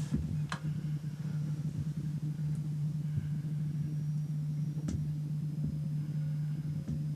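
Steady low hum, with a faint click about half a second in and another near five seconds.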